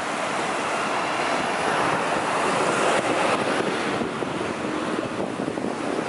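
Small waves breaking and washing up a sandy beach: a steady rushing hiss that swells in the middle and eases a little toward the end.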